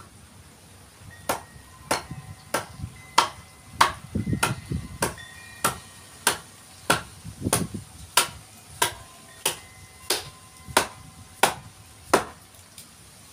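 A rubber mallet strikes the back of a steel blade set into a Eucalyptus forest red gum log, driving it into the wood to shape the didgeridoo. The sharp knocks start about a second in and come steadily, roughly one every two-thirds of a second, about sixteen in all. A faint metallic ring follows each strike, and a few duller thuds fall among them.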